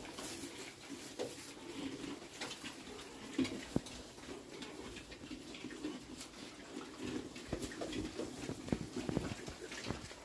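Pigs in a pen grunting softly: Duroc-cross piglets with their Large White sow, a string of short low grunts at an uneven pace, with scattered clicks and rustling.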